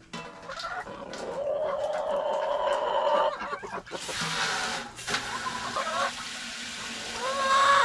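Water from a garden hose running into a galvanized metal chicken waterer as it fills, with chickens clucking around it. A louder rush of water lasts about a second around four seconds in.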